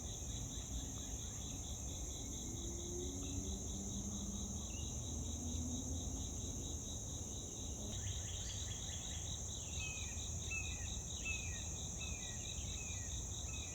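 Steady high-pitched insect chorus of crickets in a meadow. From about eight seconds in, a bird repeats short falling chirps, a little under two a second, over a low background rumble.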